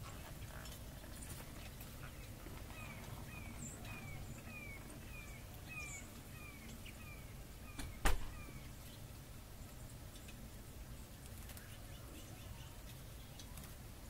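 A bird calling a run of about a dozen short, falling notes, roughly two a second, over a low steady rumble. A single sharp click about eight seconds in is the loudest sound.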